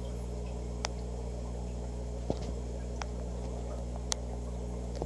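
Steady low electrical hum of running aquarium pumps and filters, with a faint wash of bubbling. Four faint, sharp clicks are scattered through it.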